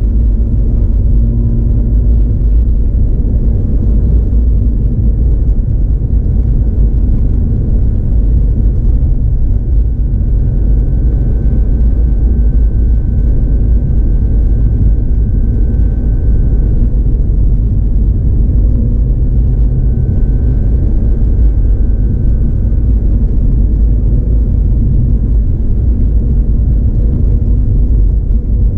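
Mazda RX-8 cruising: the steady low rumble of its twin-rotor rotary engine and road noise, with a faint whine that comes in for a few seconds midway.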